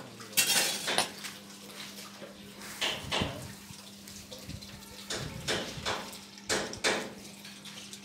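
Long iron poker knocking and scraping against the concrete floor and the cast-iron firing doors of a hand-fired boiler, in irregular sharp metallic clanks, some in quick pairs. A steady low hum runs underneath.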